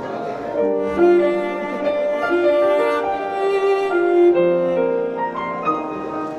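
Slow instrumental music, bowed strings with piano, playing long held notes in chords.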